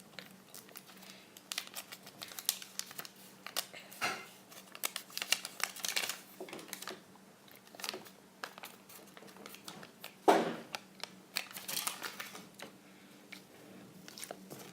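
Crinkling and irregular clicking of plastic as a Kinder Surprise egg's toy capsule is opened and its wrapped contents handled, with one louder knock about ten seconds in.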